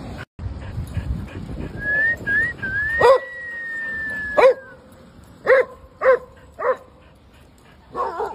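Dogs at play: a dog whines in a high, thin tone that wavers at first and is then held, falling slightly. Sharp barks come in about three seconds in, around six of them, spaced half a second to a second and a half apart.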